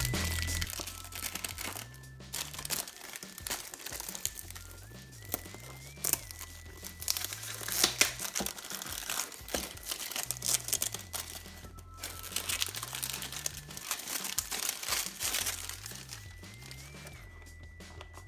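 Packaging being unwrapped by hand, crinkling and rustling in irregular bursts, over background music with a low bass line.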